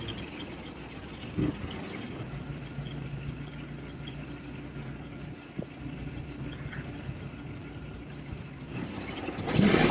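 An engine idling steadily in the yard. There is a short clank about a second and a half in, and a loud honk near the end.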